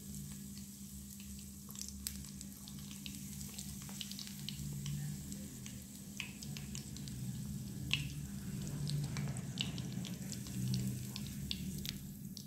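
Batter-coated chicken pieces deep-frying in hot oil in a small iron kadai, sizzling with many small scattered pops and crackles over a steady low hum.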